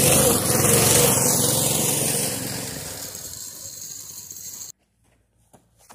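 Small go-kart driving past over dirt and gravel, loud at first and fading as it moves away, then cut off abruptly near the end, followed by a few faint knocks.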